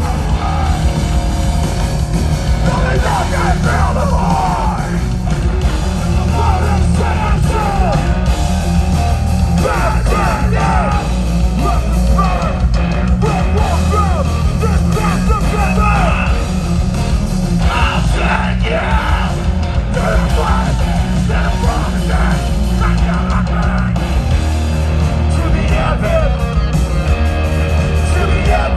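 Live hardcore band playing loud, with heavy low end from drums and bass, distorted guitars and yelled vocals.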